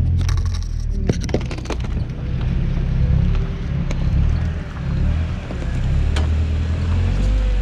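Toyota truck driving slowly over a rough off-road trail: a steady low rumble of engine and driveline, with sharp knocks and clatter from the body and suspension, three in quick succession about a second in and more near four and six seconds.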